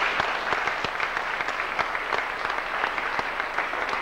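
Audience applauding, many hands clapping at a steady level to welcome a performer onto the stage.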